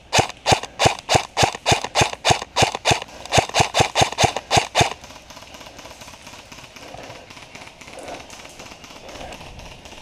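Airsoft electric rifle, a custom G&P M4, firing rapid single shots at about five a second for about five seconds, with one brief pause near the middle. After that comes a quieter rustle of movement through the undergrowth.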